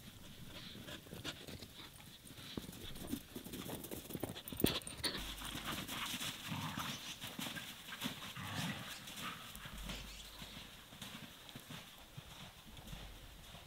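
Footsteps and a dog's paws crunching irregularly through snow, with one sharper knock about four and a half seconds in.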